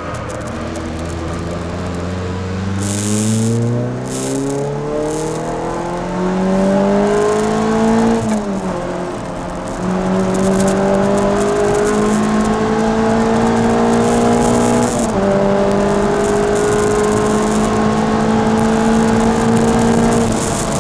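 Peugeot 306 Rallye's four-cylinder engine, heard from inside the cabin under hard track driving: revs climb for about eight seconds, drop sharply with a brief easing off, then the engine pulls on at high revs, with a short dip about fifteen seconds in.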